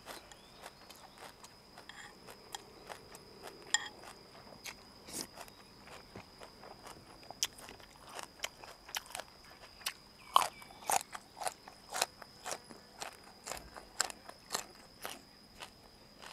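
Close-miked chewing of boiled pork uterus and raw vegetables: a run of wet smacks and crunches, about two to three a second and louder in the second half.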